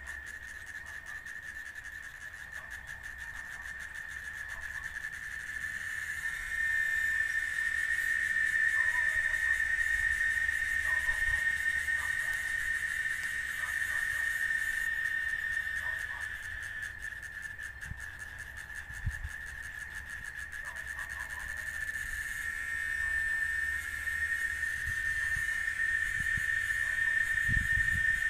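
Cicada song: a steady, high-pitched drone on one pitch that grows louder about six seconds in and again near the end.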